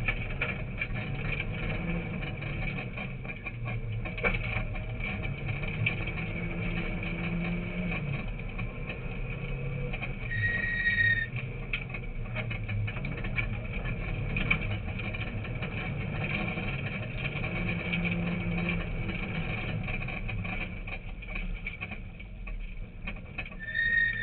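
Rally car engine heard from inside the cabin, its pitch rising and falling over and over as it is driven hard on a dirt road, with the car rattling and knocking over the rough surface. A short high beep sounds about halfway through and again at the very end.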